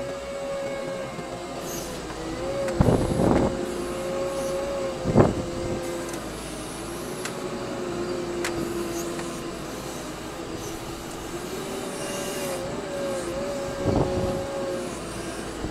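Compact wheel loader running steadily, heard from inside its cab, with a steady two-note whine from the machine. A few clunks and rattles from the loader as it works, the sharpest about five seconds in and another near the end.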